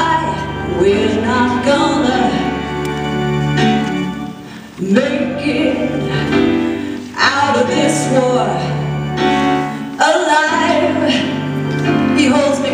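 A woman singing a song into a microphone, amplified, over held instrumental backing notes.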